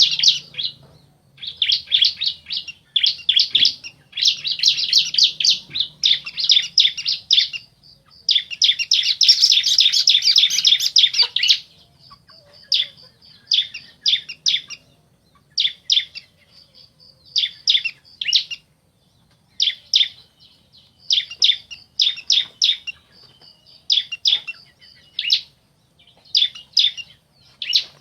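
Bar-winged prinias (ciblek) calling back and forth, a male and a female, in rapid high trilled phrases of a second or two each. About eight seconds in comes one long, dense stretch of song, after which the phrases turn shorter and more spaced out.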